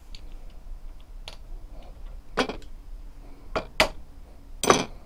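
Scattered clicks and knocks of small metal parts handled against an air rifle's receiver, a few sharp ones in the second half and the loudest clack near the end.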